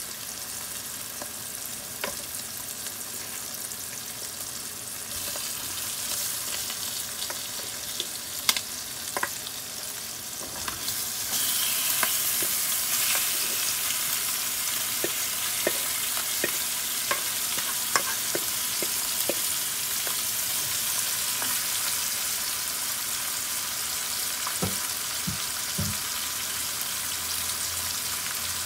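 Onion and garlic frying in oil in a metal pot, a steady sizzle that grows louder about eleven seconds in as flaked salted fish is added. A wooden spoon clicks and scrapes against the pot as the fish is stirred through, with a few dull knocks near the end.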